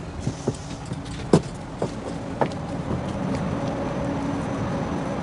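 A few sharp footstep-like clicks on hard pavement, the loudest about a second and a half in, over the steady hum of a tram and street traffic that gets a little louder in the second half.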